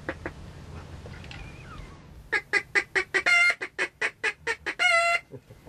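Hand-held waterfowl call blown by mouth as a joke 'water chicken' call: about two seconds in, a fast run of short, loud, nasal notes, about five a second, broken by two longer held notes, then it stops.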